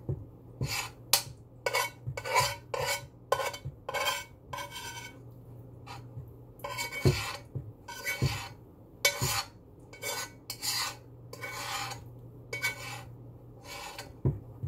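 Short, irregular scraping strokes of a utensil against a dish, about one or two a second, over a steady low hum.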